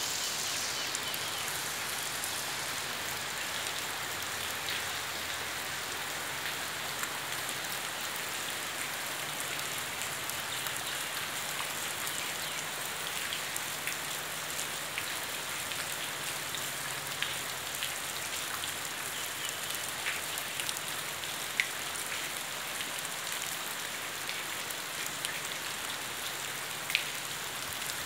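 Steady rain falling, a continuous hiss with many small drop ticks and a few louder single drop hits in the second half.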